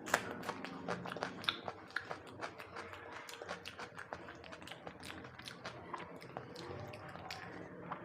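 A person chewing food with many quick, irregular wet smacks and mouth clicks, the sharpest just at the start.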